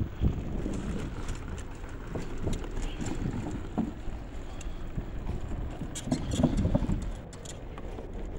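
Electric scooter rolling over a wooden boardwalk: a steady low rumble from the wheels on the planks, with irregular clicks and knocks as they cross the board seams. The knocking is loudest about six to seven seconds in.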